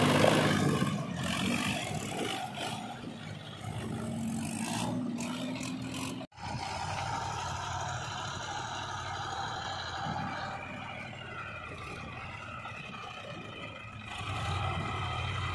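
Diesel farm tractors running at low speed: first a Mahindra 265 DI moving with scattered clattering knocks, then, after an abrupt break about six seconds in, a Sonalika tractor's diesel engine running steadily.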